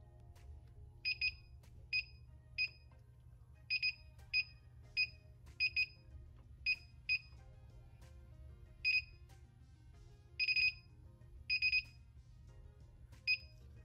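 Digital control panel of a StarCraft clamshell heat press beeping at each button press: about twenty short, high electronic beeps at irregular spacing, some in quick pairs, as a setting value is stepped up.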